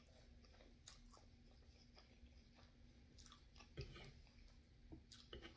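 Faint chewing and wet mouth sounds of a person eating fettuccine, with scattered soft clicks and a slightly louder knock about four seconds in.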